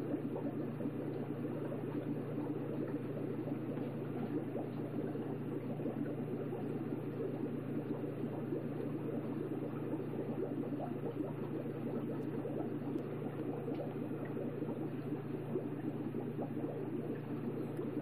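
Aquarium water bubbling and trickling steadily, with a low steady hum underneath.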